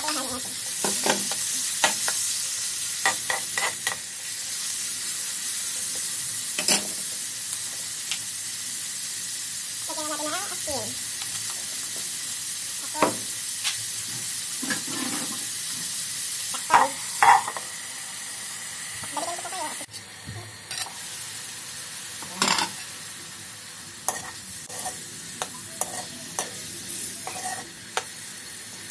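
Diced pork sizzling in hot oil with onion and garlic in a wok, with a metal ladle stirring and scraping against the pan in scattered clicks. The sizzle is loudest as the meat goes in and drops off about two-thirds of the way through.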